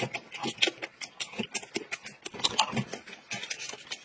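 Close-miked eating sounds: wet chewing and lip-smacking, a quick irregular run of short smacks and clicks.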